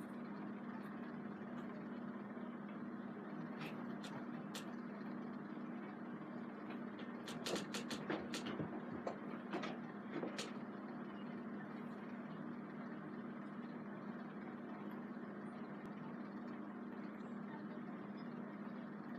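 Scattered sharp clicks and knocks of hard plastic vacuum-cleaner parts being handled and fitted together during assembly. The clicks come in a quick cluster about halfway through, over a steady low hum.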